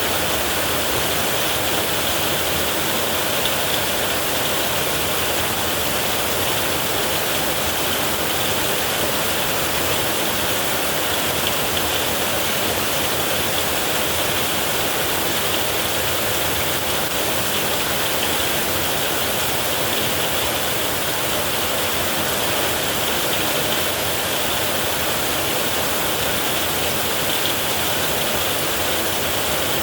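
Heavy rain falling steadily on a tin roof: a dense, even downpour with no let-up and no thunder.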